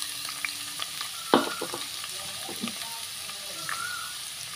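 Chopped onions sizzling steadily in hot oil with whole spices, frying for a tempering, with a few sharp knocks, the loudest about a second in.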